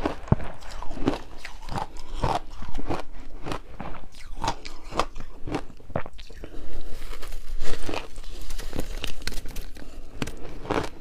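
Close-miked biting and crunching of passion fruit and matcha ice: sharp crisp cracks at irregular intervals, one or two a second, with chewing of the broken pieces between bites.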